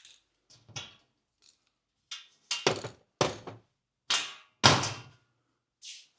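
A string of hard thunks and knocks, about six in four seconds, the loudest a little before five seconds in.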